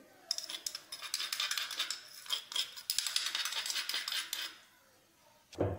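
Metal spoon scraping and clinking rapidly against a metal kadai and a small container as ground sesame and fenugreek are tipped in and stirred. The sound dies away about a second before the end.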